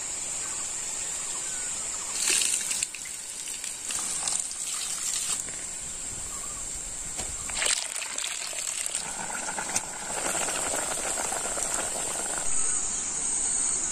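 Water sloshing and bubbling in a pot of broth boiling over a wood fire, with a few sudden splashes as ingredients go in. A steady high-pitched insect drone runs underneath.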